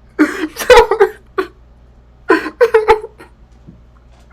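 High-pitched, squeaky cartoon animal-character voices crying out in two short bursts, the second about two seconds after the first.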